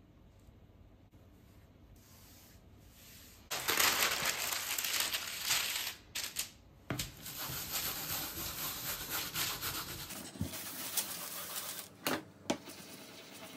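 Rubbing on the back of printing paper laid on an inked zinc litho plate, to print it by hand. It starts about three and a half seconds in and runs steady and rough with a few short pauses, then goes lighter after about ten seconds, with two sharp clicks near the end.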